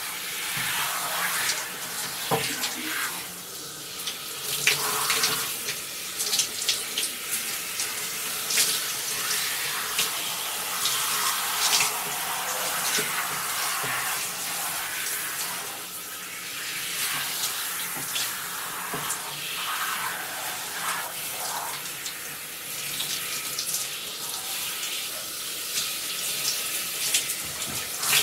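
Water running from a handheld shower head and splashing in a bathtub: a steady hiss of water broken by many irregular splashes.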